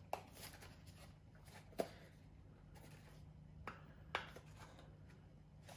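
Faint clicks and rubs of fingers handling a small cardboard box while trying to find where it opens, a few separate taps spread over several seconds, over a low steady hum.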